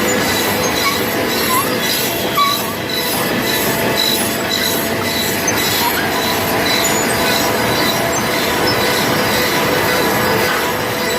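Sawmill machinery running steadily: a loud, dense mechanical din with steady whining tones and a high pulse repeating about twice a second.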